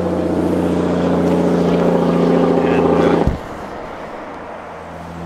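An engine or motor running steadily at one constant pitch. About three seconds in there is a single knock, after which the hum is quieter.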